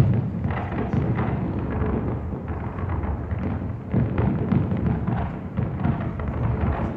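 Aerial fireworks going off in quick succession: overlapping booming bursts over a continuous rumble, with crackling shells in between and a loud bang at the very start.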